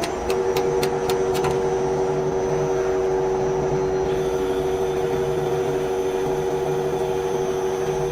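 A machine's electric motor running with a steady, even hum, with a few sharp clicks in the first second and a half.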